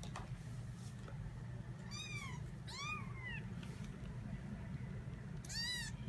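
An 18-day-old kitten mews three times, short high-pitched calls that rise and fall in pitch, about two, three and five and a half seconds in, over a low steady hum.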